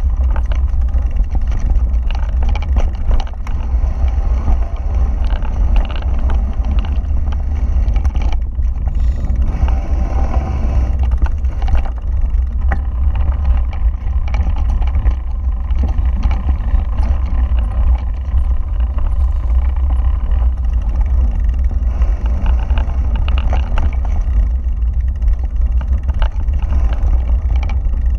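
Wind buffeting a handlebar-mounted action camera's microphone as a mountain bike descends a rocky dirt trail, with the bike rattling over the rough ground. About ten seconds in the tyres run across a wooden-plank footbridge.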